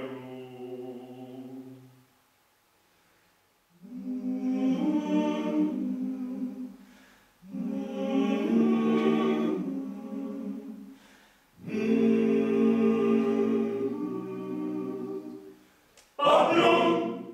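Male vocal octet singing a Slovenian choral song a cappella, in long held phrases with short breaks and a near-silent pause about two seconds in. The voices come back louder and brighter near the end.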